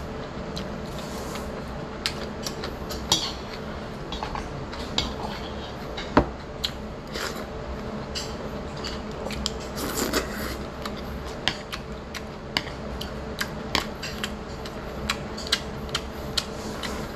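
Close-up eating sounds: chewing and slurping noodles, with scattered sharp clicks of metal chopsticks against the dishes. A steady low hum runs underneath.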